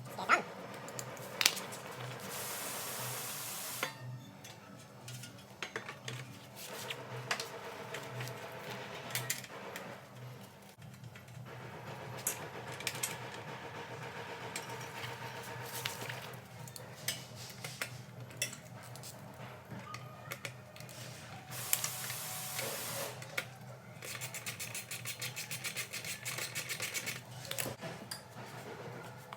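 Workshop tool work on a car's front end: scattered metallic clicks and knocks, two short bursts of hiss about two seconds in and about twenty-two seconds in, and a fast run of even clicks near the end, over a low steady hum.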